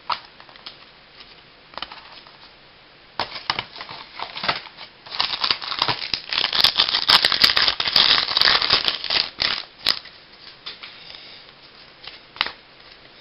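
Handling of a baseball card pack: a few light clicks, then from about three seconds in a dense crinkling and tearing of the pack's wrapper, loudest in the middle and dying away near the end.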